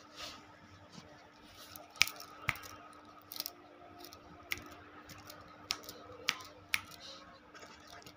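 A puppy's teeth clicking in sharp, irregular snaps, about seven in all, as it nibbles at its fur and paw while grooming itself.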